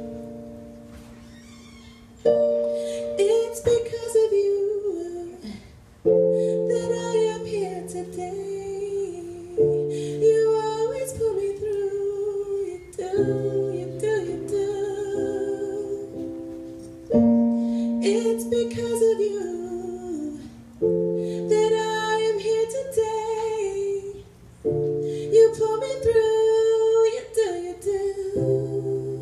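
A woman singing a slow song with live keyboard accompaniment. Sustained piano-style chords change about every four seconds under her wavering melody, and the opening chord fades away before the next one is struck about two seconds in.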